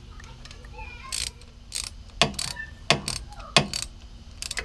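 A 5/16 socket ratchet clicking in about seven short bursts as it is swung back and forth, tightening the bolts of a carburetor intake elbow.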